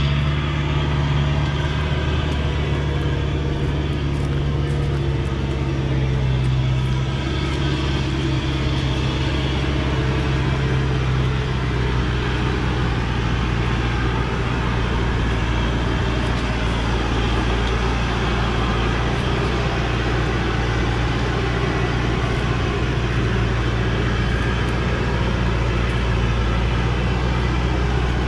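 Thaco Forland truck's diesel engine pulling hard in low gear under a full load of logs up a steep dirt track, a steady low drone that dips slightly in pitch several seconds in.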